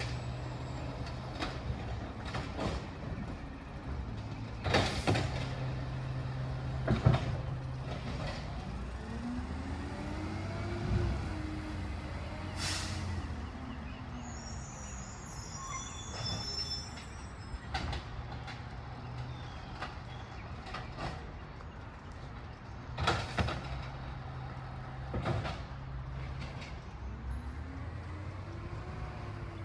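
Recycling collection truck working: its engine runs steadily and rises and falls in pitch twice, and there are several sharp knocks.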